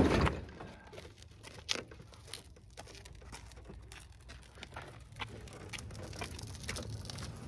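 A heavy boxed load thumps down into a plastic wheelbarrow tub, followed by scattered light clicks and crunches of gravel. A low rumble builds near the end as the loaded wheelbarrow is pushed along the gravel road.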